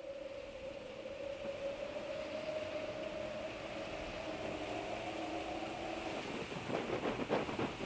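A steady hum with a fainter, lower hum beneath it, rising slightly in pitch, holds for about six seconds and then stops; gusts of wind then buffet the microphone.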